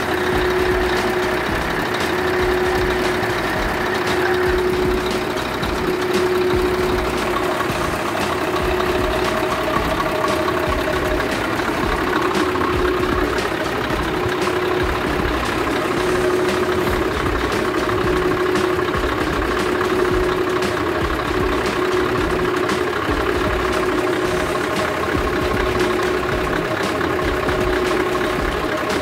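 Scania R620's V8 diesel engine idling steadily, heard from close by at the front of the truck.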